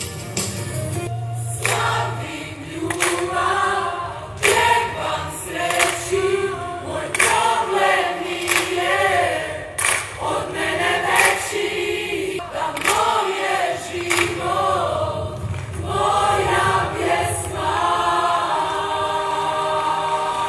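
Mixed pop choir singing, the voices moving through a phrase and ending on a long chord held steady near the end.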